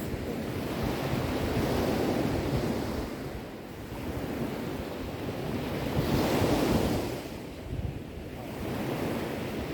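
Sea waves washing in and out, swelling and easing, with the largest surge about six seconds in.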